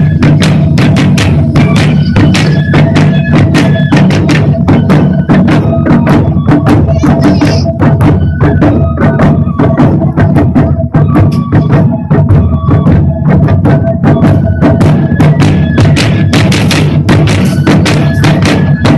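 Japanese taiko ensemble drumming: a dense, even run of sharp strokes over a steady low booming from the big drums, with a high melody line stepping between held notes above it.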